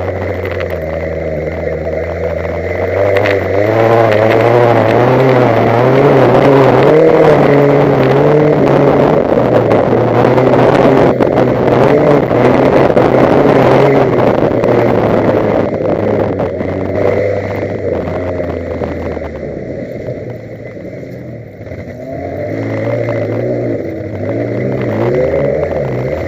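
Wreck-race car's engine, heard from on board, revving hard through the laps with its pitch rising and falling; it eases off around two-thirds of the way in, then picks up again.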